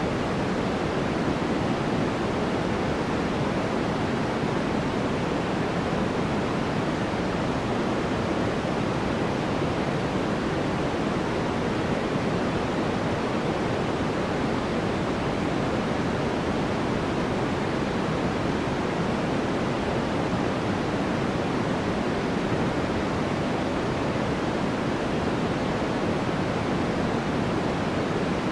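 Steady synthetic white noise for sleep: an even, unchanging rushing hiss, fuller in the low-middle range than bright.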